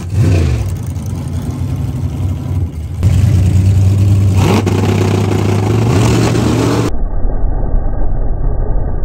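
Drag cars running hard down the strip, led by the TorqStorm-supercharged 1969 Chevrolet Nova, with its engine note climbing in pitch as it accelerates. The sound jumps abruptly about three and seven seconds in.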